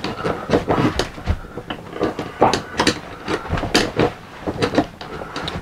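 Irregular knocks, scrapes and rattles of a steel slide-room cable being pulled and worked through the pulleys of a BAL Accu-Slide room mechanism.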